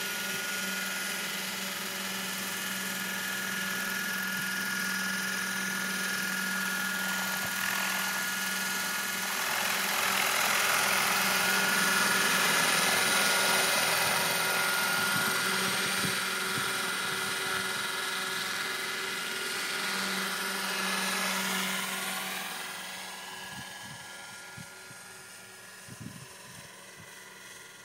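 Radio-controlled scale Bell 206L model helicopter with its rotors at speed, a steady whine from the motor and rotors. It grows louder about a third of the way in as the model lifts into a hover close by, then fades over the last few seconds as it climbs away.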